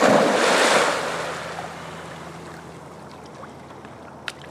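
A big splash as a dog leaps into the river, the churned water washing and settling over the next couple of seconds as the dog swims off. A short sharp click near the end.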